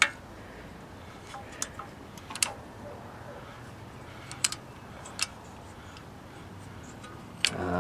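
A few short, sparse metal clicks and taps from a socket wrench worked at an old Briggs & Stratton engine's blower housing, a second or two apart, with a quick cluster of clicks near the end.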